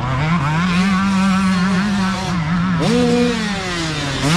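A youth dirt bike's engine running hard on throttle up a dirt trail, its pitch held fairly steady at first. About three seconds in it revs up sharply, then falls off as the bike comes into a corner.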